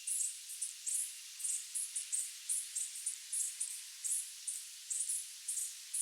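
Night insects chirping: short, high-pitched chirps about three a second, unevenly spaced, over a faint steady hiss.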